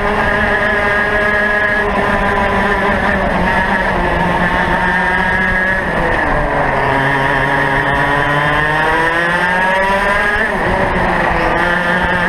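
Racing kart's two-stroke engine heard from onboard at high revs. It drops in pitch about six seconds in as the driver lifts off, climbs steadily as the kart accelerates again, dips briefly near the end, then rises once more.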